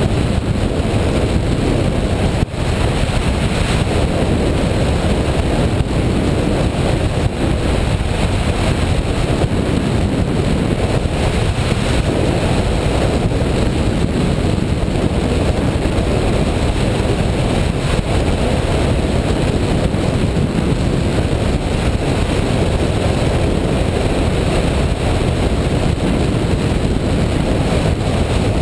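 Airflow rushing over the microphone of a camera mounted on a hang glider in flight: steady, loud wind noise, with a brief dip about two and a half seconds in.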